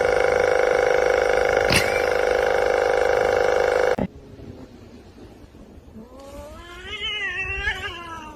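Domestic cat yowling: a loud, long, steady yowl that cuts off abruptly about four seconds in, then after a pause a quieter, wavering yowl that rises and falls near the end.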